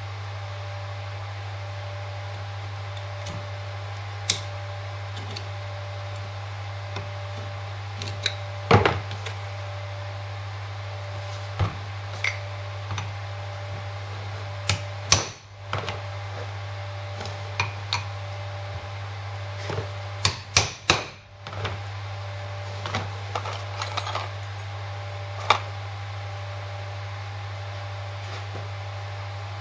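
Irregular metal clicks, taps and clinks of hand tools and parts as a universal joint is reassembled on a Land Rover Series front half shaft and its circlips are fitted, with a cluster of sharper knocks about 20 seconds in. A steady low hum runs underneath.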